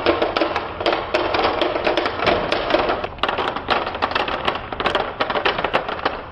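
Many marbles rolling and clattering down a wooden HABA marble run: a dense, rapid stream of clicks and knocks as they hit the track and each other, over a low rolling rumble.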